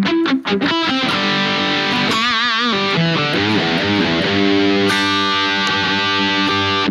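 Harley Benton Fusion electric guitar played through a Fractal Audio FM9 on a high-gain distorted rhythm tone. Fast palm-muted chugs in the first second give way to ringing chords, with a wavering vibrato about two seconds in and a new chord struck near five seconds.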